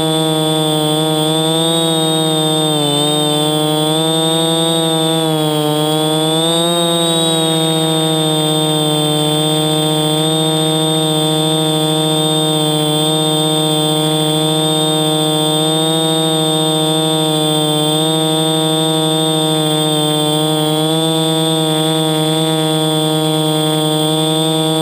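Quadcopter's electric motors and propellers humming loudly, heard from the camera mounted on the craft. The pitch dips and rises a few seconds in as the motor speed changes, then holds steady.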